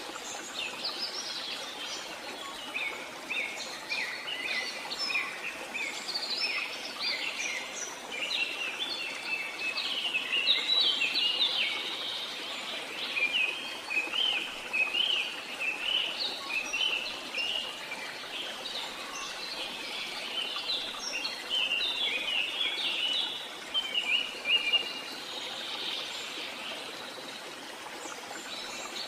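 A busy chorus of small birds chirping, with many short, quick notes overlapping throughout, over a faint steady hiss.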